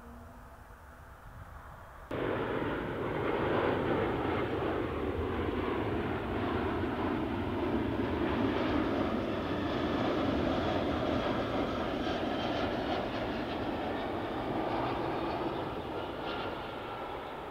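Four-engined Airbus A340-300 jet airliner passing on its landing approach: loud, steady jet-engine noise that cuts in abruptly about two seconds in, after a quieter stretch with a faint hum, and eases slightly near the end.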